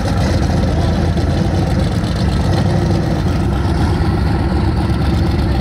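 A car engine idling steadily, its sound mostly deep and low-pitched, with no revving.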